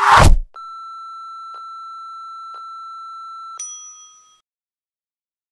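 Electronic sound effects: a loud whoosh that sweeps down in pitch and is gone within half a second, then a steady high tone held for about three seconds with a faint tick each second, ending in a bell-like ding that rings out.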